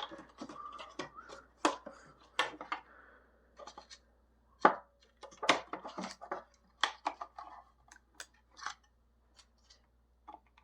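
Plastic chronograph housing being handled and fitted back together: irregular sharp clicks, taps and scrapes.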